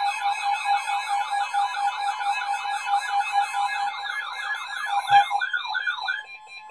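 Electronic emergency siren warbling rapidly up and down over a steady alert tone, sounding a tornado warning; the warble stops about six seconds in.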